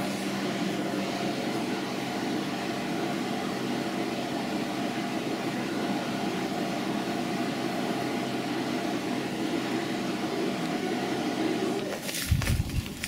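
Winery equipment running in a wine cellar: a steady mechanical hum with several held tones. Near the end it cuts off and gives way to loud, irregular low buffeting.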